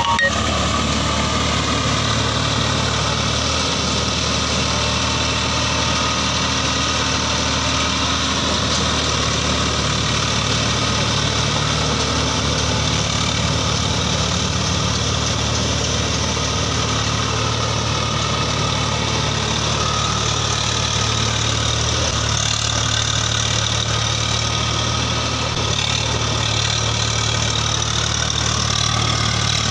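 Swaraj 855 FE tractor's three-cylinder diesel engine running steadily under load while it pulls a rotavator through wet mud.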